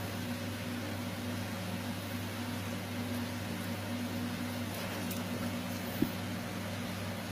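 Steady low mechanical hum, with one short click about six seconds in.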